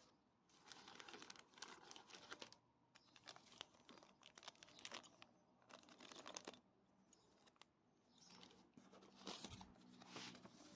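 Faint crinkling and rustling of a small clear plastic accessory bag and paper sheets handled by hand, in several short bouts.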